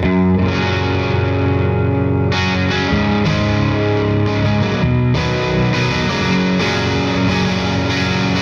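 Electric guitar with P90 pickups played through a Satellite Neutron 18-watt valve amp, pushed by an Airis Effects NoKnobsense boost, and miked in an isolation cab: overdriven, sustained chords that change twice.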